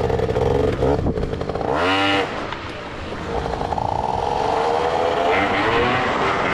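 Gilera Runner 180cc scooter engine running under way. About two seconds in it revs quickly up and back down, then its pitch climbs steadily as the scooter accelerates.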